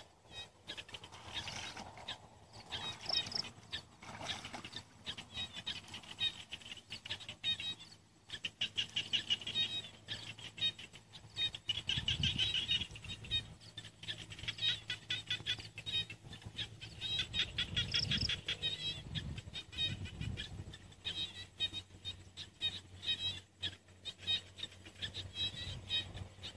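Small animals chirping outdoors in fast, pulsing trills that come in repeated bouts, with a few low thumps in between.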